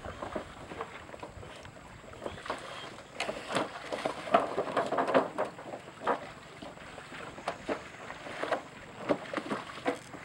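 Swamp water buffalo clambering down a wooden log pen into the water: irregular knocks of hooves on the logs and splashing, with a busier run of splashing about three to five seconds in.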